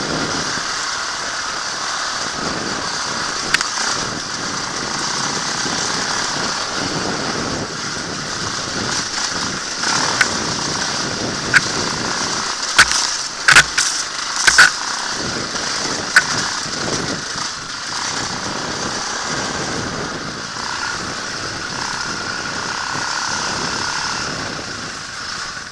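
Dirt bike engine running as the bike is ridden over a rough, muddy trail. A string of sharp knocks and clacks comes through, the loudest clustered in the middle, as the bike jolts over the rutted ground.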